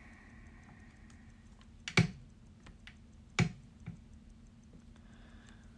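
Two sharp clicks about a second and a half apart, with a few fainter ticks around them: small watchmaker's tools such as tweezers or a screwdriver knocking against the watch movement and work surface during disassembly.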